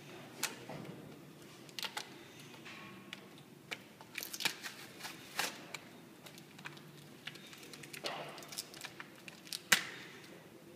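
Plastic bag crinkling as it is handled and cut open with scissors to unpack a new hand gripper: irregular rustles and small clicks, with one sharp snip near the end.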